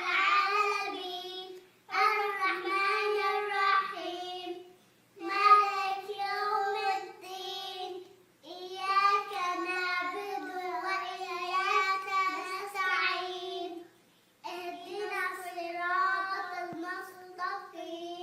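A young child's voice chanting Quran recitation in long melodic phrases of two to four seconds each, with short breaths between them.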